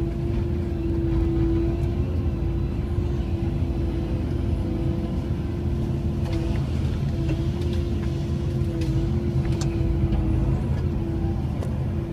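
Cat 312E excavator's diesel engine and hydraulics running steadily, heard from inside the cab: a low rumble with a steady tone over it that dips briefly twice. A few sharp clicks in the second half.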